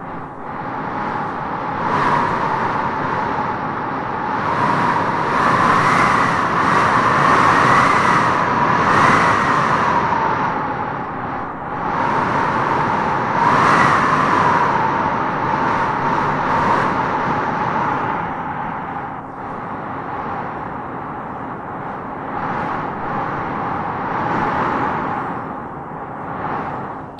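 Wind blowing in gusts, with a hollow whistling howl that rises and falls in pitch as each gust swells. It is strongest in the first half and eases off after about eighteen seconds.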